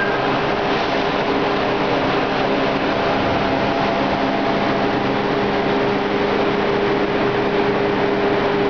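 MBTA Red Line subway train rumbling steadily alongside the platform, with a held low hum over the noise.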